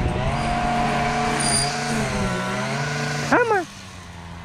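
An engine runs steadily with a constant hum, then cuts off abruptly about three seconds in, just after a short falling cry.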